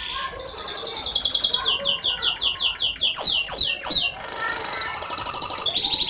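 Domestic canary singing: a fast high rolling trill, then a run of quickly repeated notes, a few steep downward-sweeping whistles about three seconds in, and another rapid high trill near the end.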